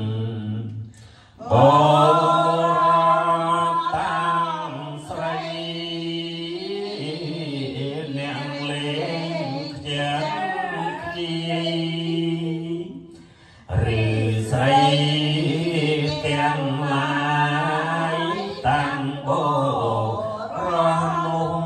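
Group of Khmer Buddhist lay devotees, mostly women, chanting a Buddhist text from their books in unison in a slow, drawn-out recitation. The chant breaks briefly twice, about a second in and again about two-thirds of the way through.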